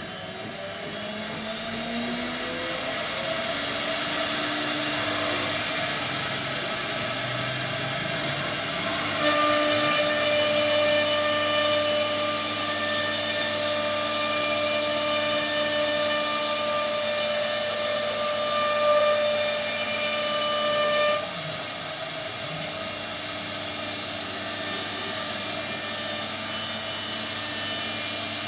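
CNC router running, its spindle giving a steady whine made of several tones. In the first few seconds some tones glide up and down; from about nine seconds in it grows louder, with a hiss and a stronger whine, then drops back suddenly about twelve seconds later.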